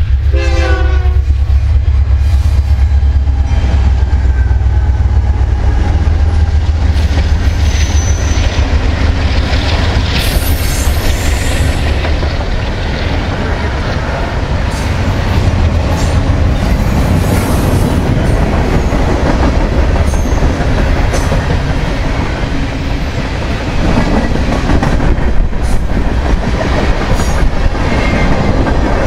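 Freight train passing close by: the diesel engines of an EMD SD75I and a GE ES44DC rumble past in the first several seconds, with a brief falling tone right at the start. Then the freight cars roll by, wheels clattering over the rail joints with a few short wheel squeals.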